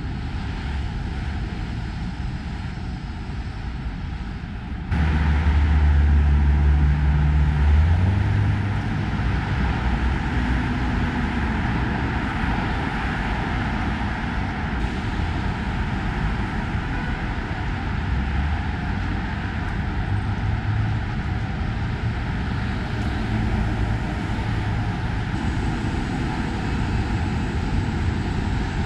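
Steady roar of heavy road traffic on a wide multi-lane avenue. About five seconds in it gets louder, with a strong low engine rumble from a passing heavy vehicle for a few seconds.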